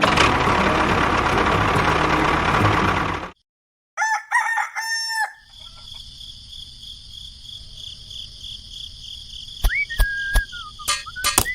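A rooster crowing once, about four seconds in, after a loud rushing noise that cuts off suddenly. A quieter steady hiss with a few clicks follows.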